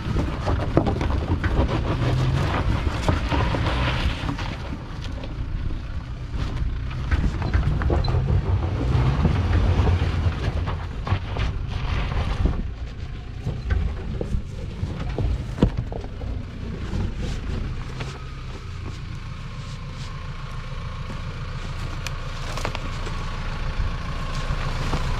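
An off-road 4x4's engine revving up and down under load as it climbs a rough, rocky track, with sharp knocks and cracks from stones under the tyres; about three-quarters of the way through it eases to a steadier, quieter run.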